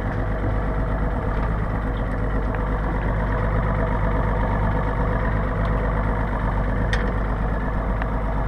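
Boat engine idling steadily, with a few faint clicks near the end.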